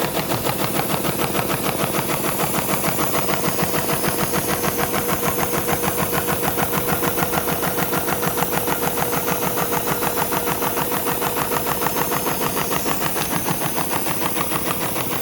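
SEWPRO 273-6040 programmable heavy-duty sewing machine stitching a pattern with heavy thread at about 400 RPM: a fast, even clatter of needle strokes. A steady hum from the machine's air cooler runs underneath.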